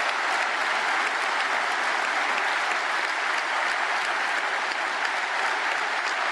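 Large audience applauding steadily: dense, even clapping that holds at one level throughout.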